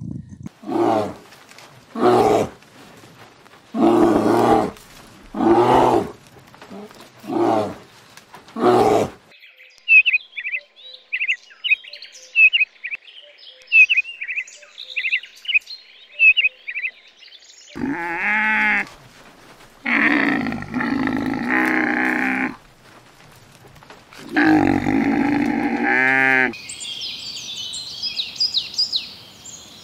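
A run of animal calls. About eight short pitched calls come in the first nine seconds, then a stretch of high bird chirping, then three or four longer pitched calls, and high chirping again near the end.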